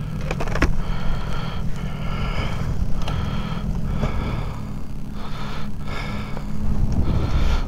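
Wind buffeting a helmet-mounted microphone in a steady low rumble, with a breathy hiss that swells about once a second, over stopped motorcycles idling.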